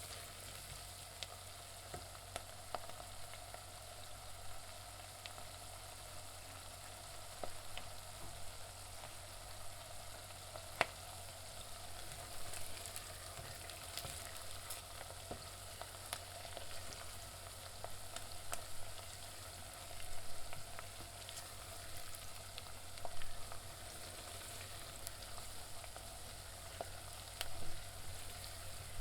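Onions frying in a pan: a steady sizzle with scattered small pops and crackles, swelling louder a few times in the last third.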